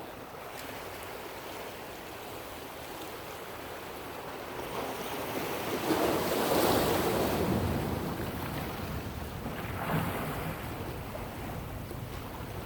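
Ocean waves washing in, one surge building to its loudest about six to seven seconds in and a smaller one near ten seconds.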